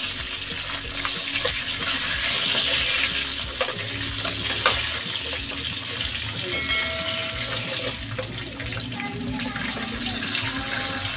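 Chicken wings sizzling in hot chili-garlic butter sauce in a frying pan as they are stirred and tossed with a spatula. There is a steady frying hiss, with a few sharp scrapes and knocks of the utensil against the pan.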